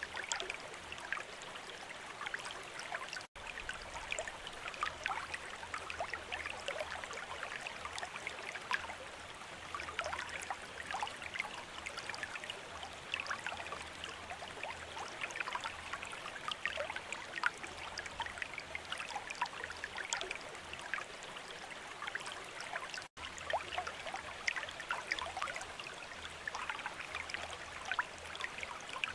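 Water trickling and splashing from a bamboo fountain: a steady patter of small droplets and splashes, broken twice by a momentary gap in the sound, about three seconds in and near the end.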